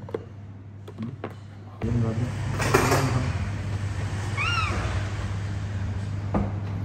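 Baby monkey giving one short, arching squeal about halfway through. Under it is a steady low hum that starts suddenly about two seconds in.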